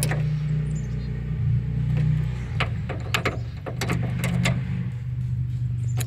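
Hand ratchet with a Torx bit clicking in short, irregular bursts as the hatch latch bolts are snugged down. A steady low mechanical hum runs underneath and is the loudest sound.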